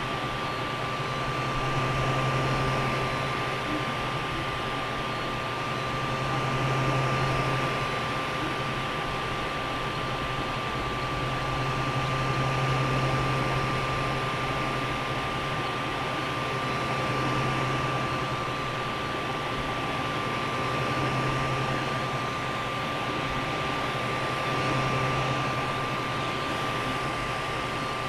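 Creality Ender 3 Pro 3D printer running a print: a steady fan whir with a constant high tone, and a low motor hum from the moving print head that swells and fades every few seconds.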